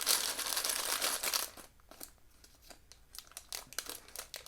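Plastic bag crinkling as it is handled and torn open, loud for about the first second and a half, then fainter rustling with light clicks.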